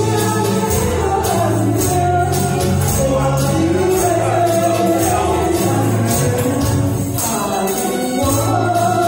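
Pop-song backing music over a PA with a steady beat and a melody line, and small hand-held shakers rattling in time with the beat.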